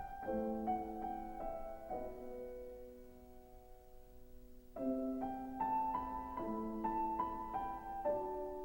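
Slow piano music: short runs of struck notes, each settling into a held chord that rings for a couple of seconds.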